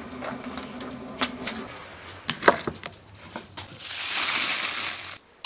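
Dry twigs crackling as they burn in a clay tandoor, with a few sharp pops and snaps. Near the end, baking paper and aluminium foil crinkle as they are handled, for about a second and a half.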